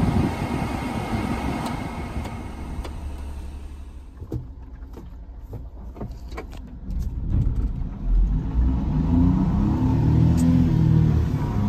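Heater blower of a 1999 Honda Acty truck running at speed, rushing air at the dash vent over the idling engine. It drops to a quieter run with a few handling clicks. About eight seconds in, a louder low engine rumble takes over.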